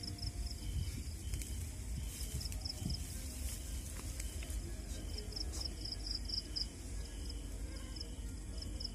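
Insects chirping: a short chirp repeated about one and a half times a second, with bursts of rapid high trills coming and going, over a steady low rumble.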